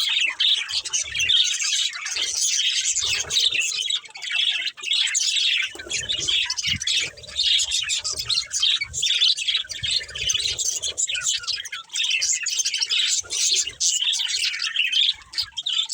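Several budgerigars chirping and chattering continuously, a dense run of quick high chirps.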